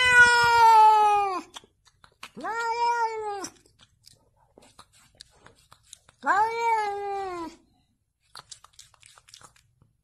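Domestic cat meowing three times, each meow a little over a second long. The first is the loudest, and the later two rise at the start and slide down in pitch at the end.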